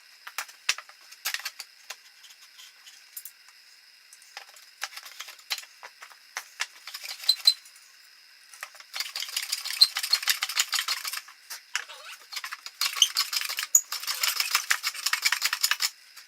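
Hand plane being pushed over a wooden board, two long rasping strokes of shavings coming off in the second half, after a run of light clicks and knocks as the plane and board are handled.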